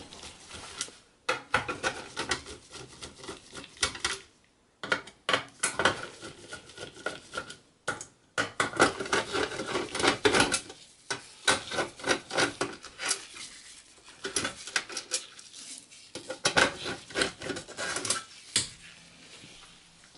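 Screwdriver working screws out of a sheet-steel hard-drive bracket, with irregular metallic clicks, ticks and scraping, broken by a couple of short pauses, along with the clatter of the metal drive cage being handled.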